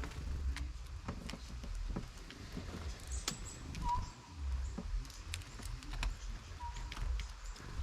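Squirrels and birds at a feeding spot: scattered light clicks and patters of small animals picking at food, with two short chirps, one about four seconds in and one about six and a half seconds in, over a low rumble.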